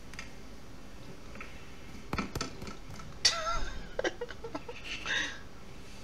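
A couple of quick knocks from a sliding glass door, then a domestic cat meowing once with a wavering pitch, followed by a short breathy sound.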